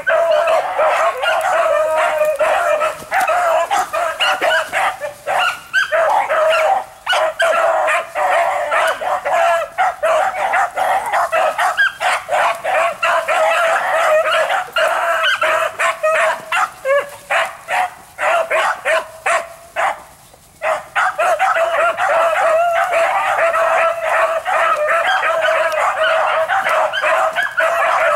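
A pack of rabbit-hunting dogs, an old dog and several young pups, barking and yipping together in a near-constant chorus as they run a rabbit's track. The chorus breaks off briefly about two-thirds of the way through, then picks up again.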